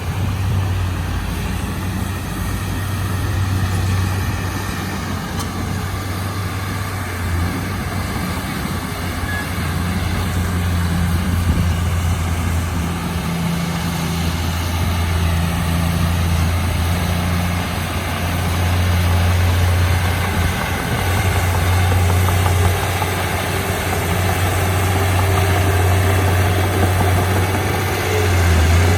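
Heavy diesel engine of earthmoving machinery running steadily with a deep, low hum, swelling slightly near the end.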